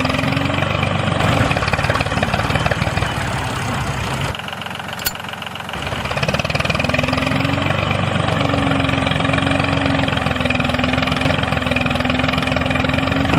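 A motor running steadily with a held hum. It drops off briefly about four and a half seconds in, then picks back up.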